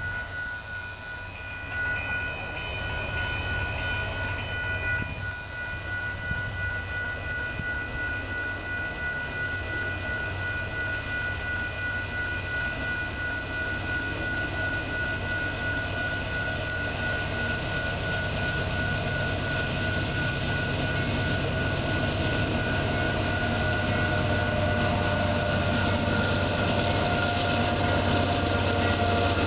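Approaching GE AC4400CW diesel locomotive sounding its air horn for a grade crossing in a long, steady multi-note chord. Under it the engine's low rumble grows louder as the train nears.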